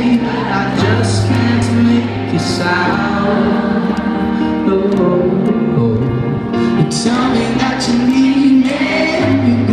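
Live pop-rock band music in an arena, with piano, held bass notes, drum and cymbal hits and singing, heard from far back in the audience on a phone's microphone.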